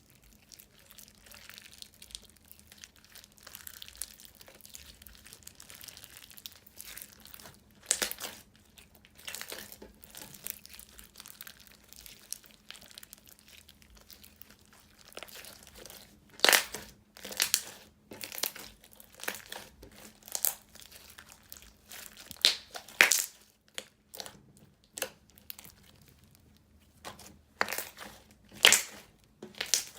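Thick, glossy slime with foam beads being squished and poked by hand, giving sticky crackles and clicks. They are faint at first, with louder, sharper pops coming more often from about halfway through.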